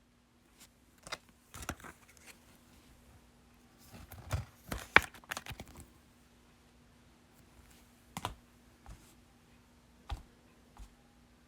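Scattered light clicks and taps in a small room, with a quick flurry of them about four to six seconds in and a faint steady hum underneath.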